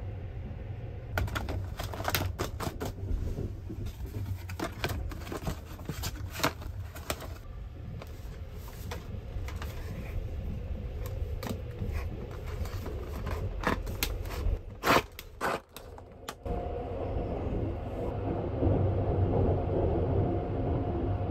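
Cardboard self-heating bento box being handled, with many sharp clicks and scrapes as its yellow heating string is worked, over the steady low rumble of the moving train. About three-quarters of the way in the clicking stops and a steadier, louder rushing noise takes over.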